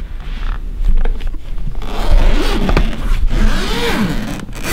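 The zipper on a HoloLens 2 fabric clamshell carrying case being pulled open around its edge. It is a rasping run of zipper teeth that is patchy at first and becomes steady and louder about two seconds in.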